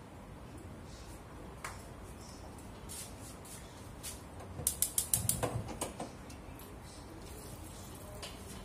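Gas hob's spark igniter clicking rapidly, about seven quick ticks in a second, as a burner knob is turned; a few scattered light clicks around it.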